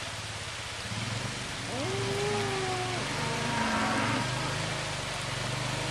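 Rain falling on a stream, with a cow giving one long moo about two seconds in. Under it runs the steady low hum of an ATV engine.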